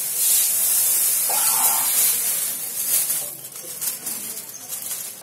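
Granulated sugar poured from a plastic bag into an aluminium pot, a steady hiss that fades after about three seconds as the pour ends.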